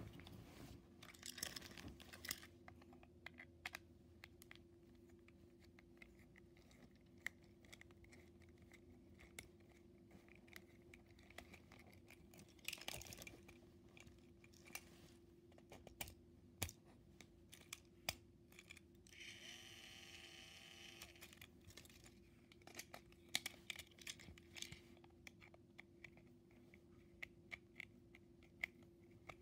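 Faint clicks, taps and small plastic handling noises as a plastic toy engine is turned over and its battery cover is worked with a small screwdriver, with a few short rustles and a brief higher tone about two-thirds of the way through.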